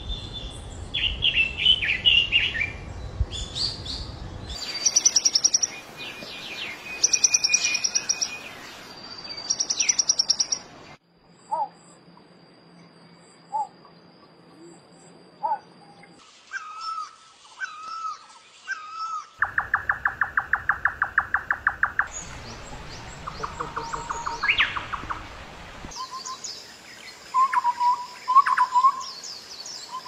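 Calls and songs of several different wild birds, one species after another in short clips that change abruptly every few seconds, beginning with a red-billed leiothrix chirping. The birds give high chirps, short repeated whistled notes and rapid trains of notes.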